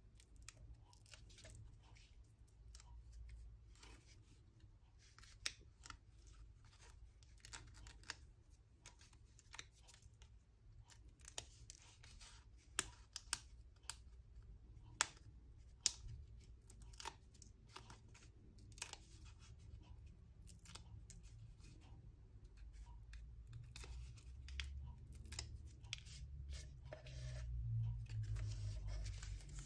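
Faint paper and adhesive handling: small 3D foam adhesive dots being peeled from their backing and pressed onto card pieces, with soft rustles and many scattered sharp clicks and ticks.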